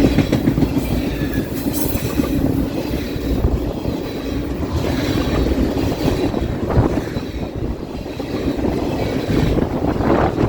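Freight train's cars rolling past, wheels clattering on the rails, with heavy wind buffeting the microphone.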